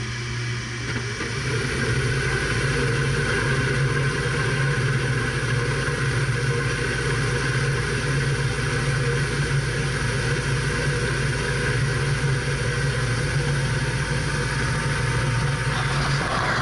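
Furnace induced draft fan motor running steadily with a low hum and a whooshing whir, its pitch and level stepping up about a second in as it comes up to speed.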